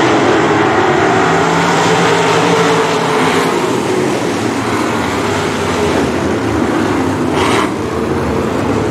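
A pack of 305 sprint cars' V8 engines running hard together, several engine notes rising and falling as the field races through the turns of a dirt oval.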